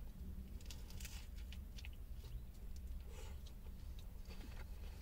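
A person biting into and chewing a mouthful of soft chicken wrap, with faint wet mouth clicks and small crunches scattered through, over a steady low hum.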